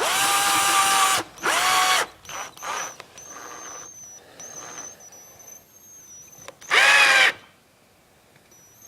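Power drill driving screws to fasten a firework tube onto a wooden rack board: three bursts of motor whine, rising and falling in pitch with the trigger. The first two come in the opening two seconds and the third about seven seconds in.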